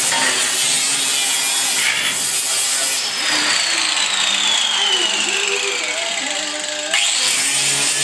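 Electric angle grinder grinding and sanding a steel truck bed. About three seconds in, the grinder's whine falls steadily in pitch as it winds down, and it starts up again sharply near the end.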